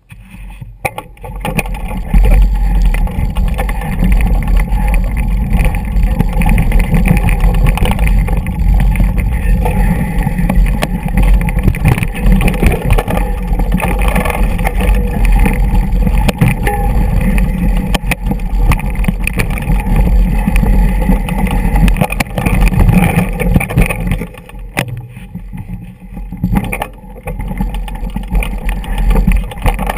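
Mountain bike rolling down a rocky dirt trail, heard through a GoPro action camera's microphone: a dense low rumble with constant small knocks and rattles as the tyres and frame jolt over stones. It starts about two seconds in and eases for a moment near the end.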